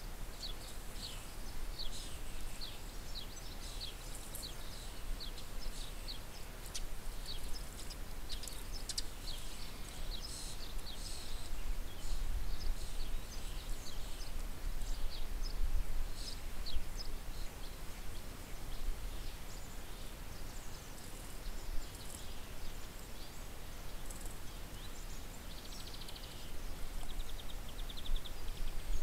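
Small songbirds chirping: many short, high chirps, thick in the first half and thinning out later, with a quick trill near the end, over a steady low rumble.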